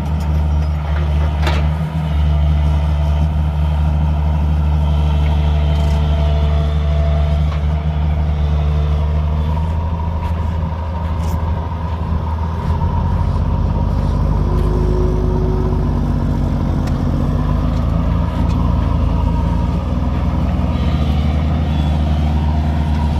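Heavy diesel engine running steadily under load, with a knock about one and a half seconds in; its low drone deepens about halfway through.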